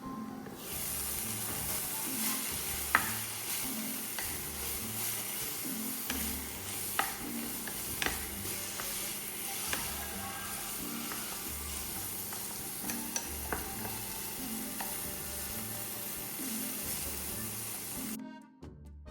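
Food sizzling as it fries in oil in a pan, stirred, with a utensil clicking against the pan a few times. The sizzle stops suddenly near the end.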